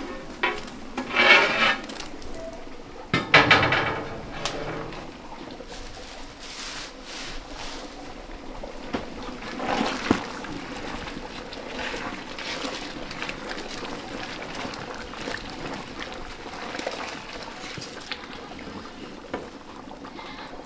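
A thick stew of peas in a large metal pot being stirred with a wooden paddle: wet sloshing and squelching with small knocks against the pot. A few louder clatters come in the first few seconds as the lid comes off.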